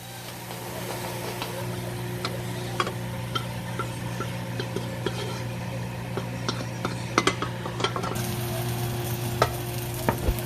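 Beef, chicken and shrimp sizzling in hot oil in a pan on high heat while a utensil stirs and scrapes them, with irregular clinks and knocks against the pan, a few louder ones about seven seconds in. A steady low hum runs underneath.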